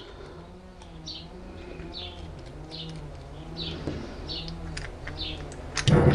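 A pigeon cooing over and over in low rising-and-falling phrases, with a small bird chirping about once a second. A short clatter of tools sounds just before the end.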